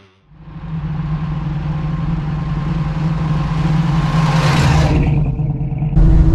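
1966 Chevelle SS big-block V8 running at a steady note as the car drives toward the camera, growing louder and brighter as it closes in and passes about four and a half seconds in, then dropping away. Near the end the sound cuts abruptly to a louder, deeper engine sound.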